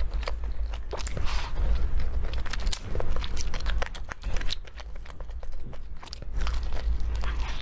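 A person biting and chewing crunchy food close to the microphone: a dense run of sharp, irregular crunches over a low rumble.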